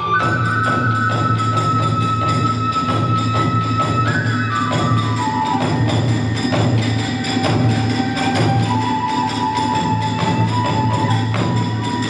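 Kagura music: a large barrel drum beats a fast, steady rhythm with clashing hand cymbals, under a bamboo flute holding long high notes that step down in pitch about four seconds in.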